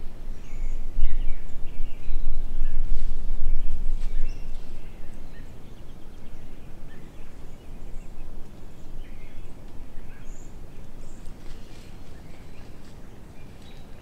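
Outdoor woodland ambience: a low rumble on the microphone, heaviest in about the first four seconds and quieter after, with faint, scattered bird chirps.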